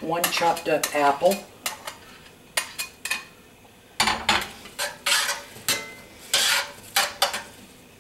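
Metal tongs scraping and clicking against a cast-iron skillet as chopped apple and onion are stirred in hot oil, in a run of separate strokes that gets busier about halfway through.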